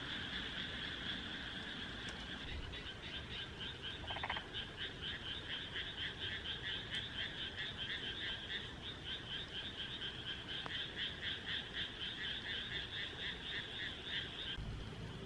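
Frog calling in a rapid, even run of short notes, about three to four a second, starting a couple of seconds in and stopping about a second before the end. Under it runs a steady high-pitched chorus.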